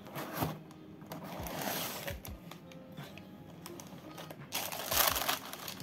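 Cardboard box lid being handled and lifted open, then white tissue paper rustling loudly from about four and a half seconds in as the wrapping is pulled back. Faint background music underneath.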